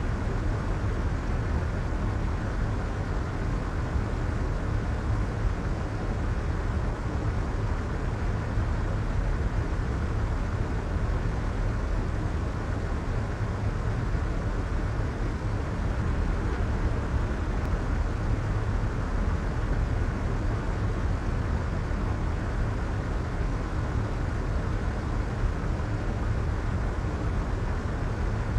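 Soft white noise for sleep: a steady, even rushing with most of its weight in the low end and little hiss up top, unchanging throughout.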